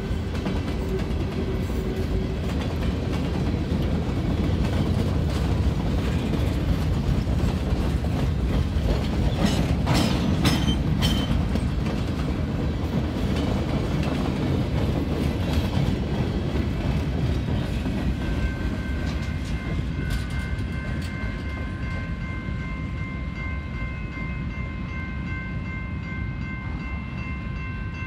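Freight train of boxcars rolling past with a steady rumble and clatter of wheels on the rails, with a cluster of sharp clanks about ten seconds in. From about two-thirds of the way through, a grade-crossing warning bell rings steadily over the train noise, which eases toward the end.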